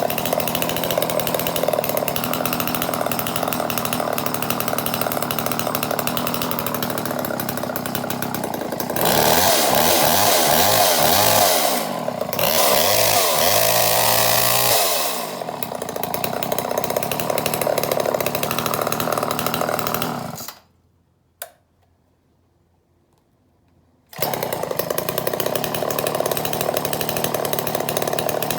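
1985 Homelite Super XL Automatic two-stroke chainsaw idling, then revved to wide-open throttle twice with no wood in the cut and falling back to idle. About twenty seconds in, the sound drops to near silence for a few seconds with a single click, then the saw is idling again.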